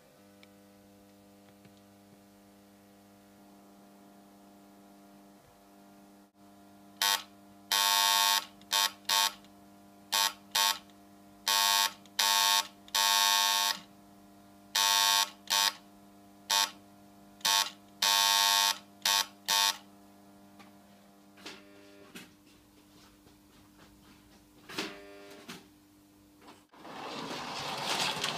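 Electric buzzer sounded by hand with a telegraph key in an irregular string of short and long, Morse-style pulses, over a steady electrical hum. Near the end a toy train starts running on the track, with rising motor and wheel noise.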